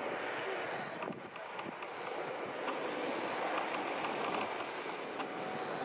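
Jet engine noise from an Airbus A320neo's Pratt & Whitney geared turbofans as it climbs away after takeoff: a steady, distant rushing sound.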